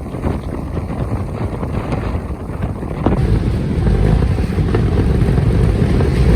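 Strong gusting wind buffeting the microphone, a dense low rumble that grows louder about three seconds in.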